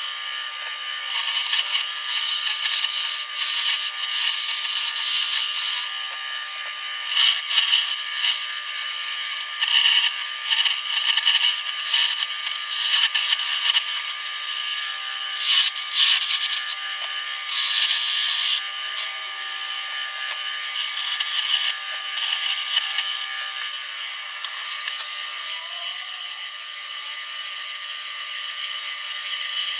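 Wood lathe running with a steady motor tone while a tool or sandpaper is held against the spinning wooden handle blank, giving irregular hissy scraping bursts of a second or two that ease into a quieter, steadier rubbing near the end.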